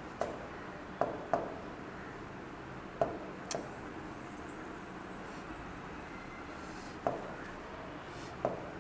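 A pen tapping and writing on the glass face of an interactive touchscreen board: about seven short, separate taps, each with a brief ring. A faint high hiss runs for a few seconds after the tap about three and a half seconds in.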